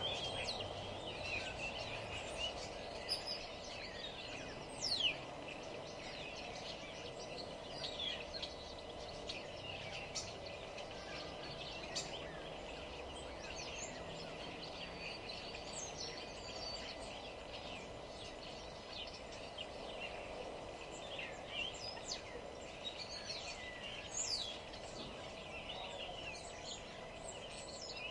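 Many small songbirds chirping, with quick falling whistles, overlapping calls scattered throughout, over a steady background hum.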